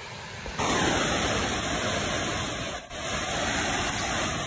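Ocean surf washing onto a sandy beach: a steady rushing noise that comes in suddenly under a second in, with a brief dip near three seconds.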